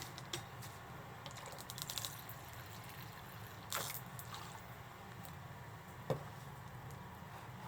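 Asari clam shells clicking against a bowl as the clams and nanohana are put in, with a brief splash of sake poured over them near the middle.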